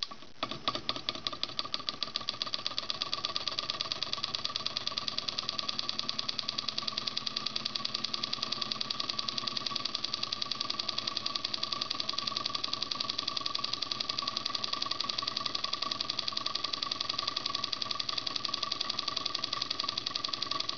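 1920 Martalex solenoid engine running on a single 1.2 V AAA nickel-metal-hydride battery, turning in reverse: its rapid, even clicking picks up speed over the first couple of seconds and then holds steady, with a steady whine underneath.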